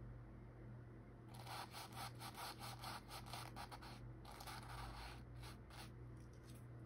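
Paintbrush scrubbing paint onto canvas in a quick run of short strokes, starting about a second in and going lighter after about four seconds.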